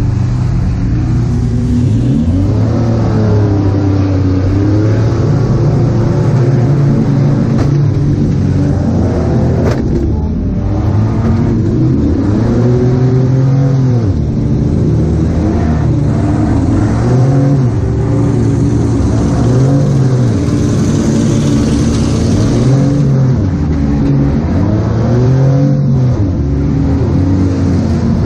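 Minivan engine heard from inside the stripped-out cab, revving up and falling back over and over as the van is driven hard back and forth in a demolition derby. There is a sharp bang about ten seconds in.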